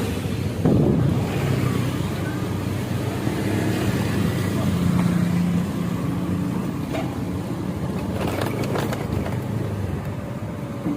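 A motor vehicle engine running steadily, with a sharp knock about a second in and a few clicks later on.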